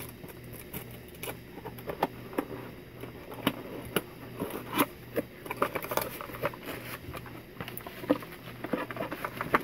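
Fingers picking, tapping and scraping at a small cardboard box, then pulling the box open: a run of irregular light clicks and scratches, over a faint steady low hum.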